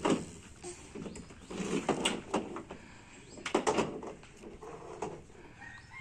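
A plastic toy backhoe loader being handled, knocked and scraped on a plastic truck bed liner, with clusters of clattering knocks near the start, about two seconds in and about three and a half seconds in.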